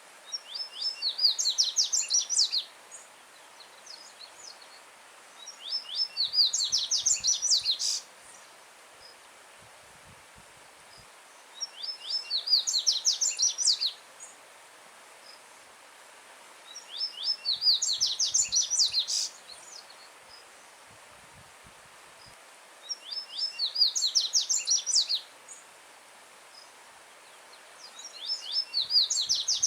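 Yellow-bellied seedeater (coleiro-baiano) singing: a loud phrase of fast, high, falling notes lasting about two seconds, repeated six times, about every five and a half seconds. A faint steady rush of a stream runs underneath.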